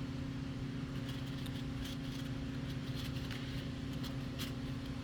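A steady low mechanical hum, like an engine or motor running at an even speed, with a few light clicks over it.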